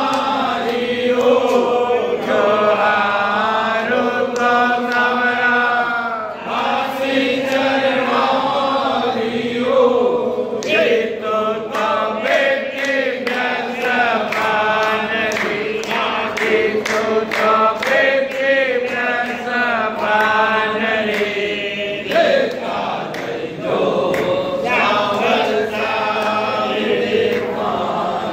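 A group of voices singing a devotional aarti chant together, accompanied by a steady run of sharp strikes that keep time through much of it.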